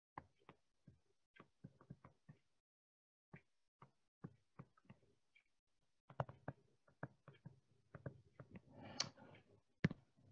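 Faint, irregular taps and clicks of a stylus on a tablet screen during handwriting. A short, slightly louder rustle comes near the end.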